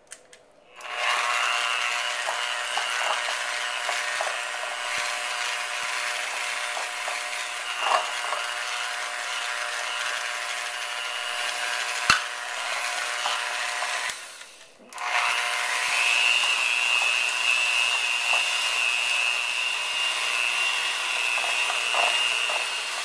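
Electric mixer running steadily, its beaters creaming softened butter and sugar in a bowl. It stops for about a second just past halfway and starts again, with an occasional light knock of the beaters against the bowl.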